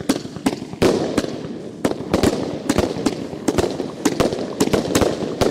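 A Riakeo 'Dubai' firework battery firing: a fast, uneven string of sharp bangs over a dense crackling haze.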